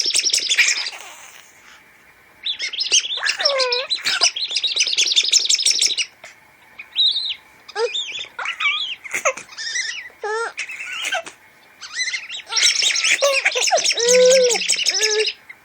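A bird-call noisemaker whistle warbling in long runs of rapid, high trills, with short chirps and swooping squeaks in between.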